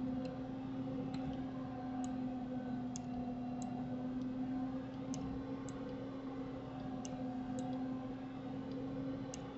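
Scattered computer mouse clicks, about one a second and irregular, over a steady low electrical hum.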